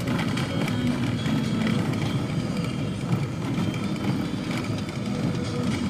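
Off-road vehicle driving over a rough track: steady engine and tyre noise, with frequent small knocks and rattles.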